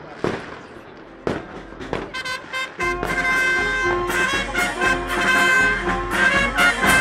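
A few sharp firecracker bangs. Then, about three seconds in, a street brass band strikes up: trumpets, horns and a tuba playing over a bass drum.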